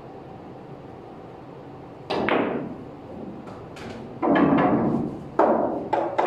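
Pool shot: a sharp cue-on-ball strike about two seconds in, followed by a run of hard clacks of balls against each other and the cushions. A ball drops into a pocket and rolls down the ball-return channel under the table.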